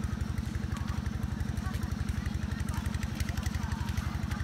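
An engine running steadily, with a fast, even pulsing beat.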